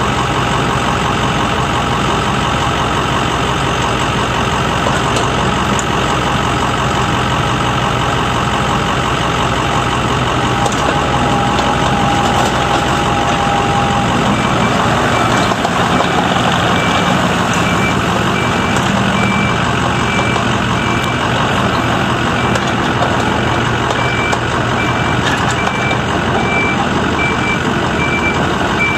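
IHI 35N-3 mini excavator's Yanmar diesel running steadily under hydraulic work as the machine slews and moves, with a held whine for a few seconds about a third of the way in. From about halfway on, a travel alarm beeps steadily over the engine.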